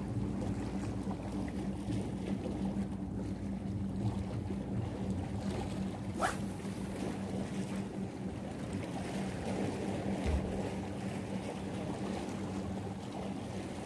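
Steady low motor hum over wind and sea noise at the shoreline. About six seconds in, a fishing rod is cast with a single quick swish.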